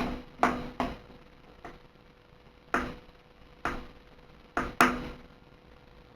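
Hollow aluminium tube and metal anchor being handled and set down, giving about eight sharp, uneven clinks and knocks, some with a short ring. A faint steady hum runs underneath.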